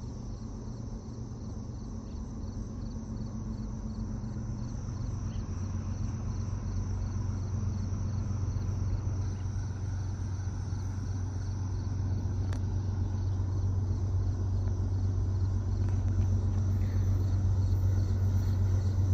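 Diesel locomotives of an approaching freight train, a low steady rumble in the distance that slowly grows louder. Crickets chirp faintly over it.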